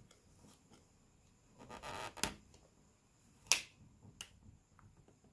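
A plastic card scraping as it is worked into the edge of a Samsung Galaxy S4's frame, with sharp clicks about two, three and a half and four seconds in; the click near the middle is the loudest.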